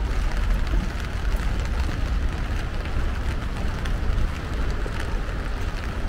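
Steady rain falling, with scattered raindrop ticks over a continuous hiss and a steady low rumble underneath.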